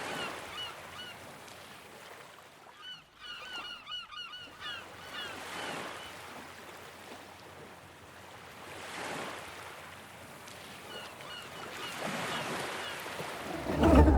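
A flock of birds, goose-like water birds, making many short repeated calls, thickest a few seconds in and again near the end, over slow swells of rushing noise like surf or wind. A loud whoosh comes just before the end.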